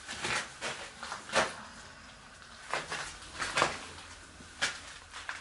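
Footsteps on a gritty dirt floor in a narrow stone passage: a series of short, uneven steps, roughly one every half second to second.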